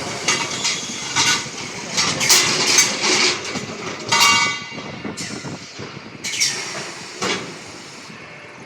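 Metal clanking and rattling: a quick run of knocks with ringing metallic tones, as from steel pipe being handled by machinery. It thins out and grows quieter after about five seconds.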